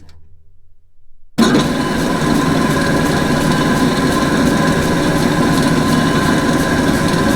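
Large drill press running: after a brief faint low hum, the machine's sound comes in suddenly about a second and a half in and runs on steadily as a loud hum with a whine and a faint regular ticking.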